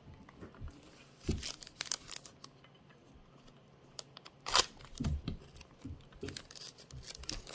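Foil wrapper of a Panini Chronicles baseball card pack crinkling as it is torn open by hand, in short crackles with one sharp rip about four and a half seconds in.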